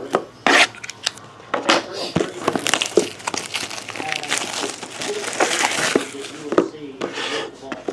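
Plastic wrapping crinkling and tearing in irregular crackles and sharp snaps as a sealed trading-card box is unwrapped.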